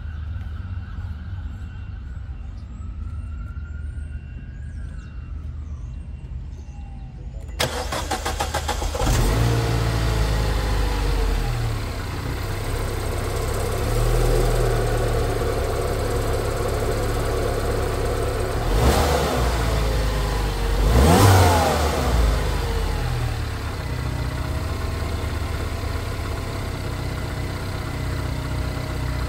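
Cold start of a 2010 Mini John Cooper Works' 1.6-litre turbocharged four-cylinder: after several seconds of low hum, the starter cranks briefly and the engine catches and runs. It is revved twice in quick succession about two-thirds of the way through, then settles to a steady idle.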